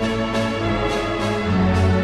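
Orchestral background music with held chords that change about one and a half seconds in.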